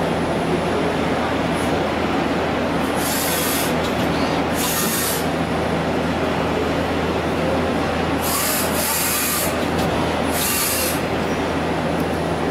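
Okuma CNC vertical lathe cutting a steel ring, running with a steady low hum and rumble. Four short bursts of hiss break in over it.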